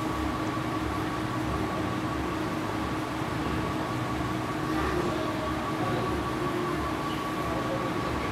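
Steady mechanical hum of running machinery, with a faint high whine held on one note and a low throb that pulses about twice a second.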